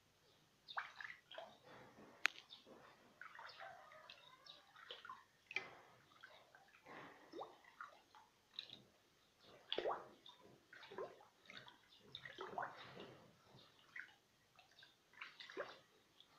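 Small splashes and drips of water at an irregular pace, with one sharp click about two seconds in.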